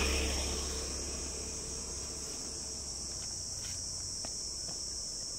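Steady high-pitched chirring of an outdoor insect chorus. A low rumble underneath fades away over the first few seconds.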